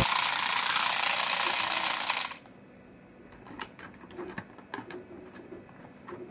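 Mini electric massage gun running, a fast buzzing rattle that cuts off suddenly a little over two seconds in, followed by a few faint clicks and taps.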